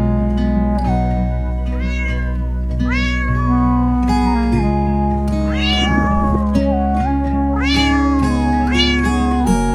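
Cat meows, about five of them, each rising and falling in pitch, over steady background music.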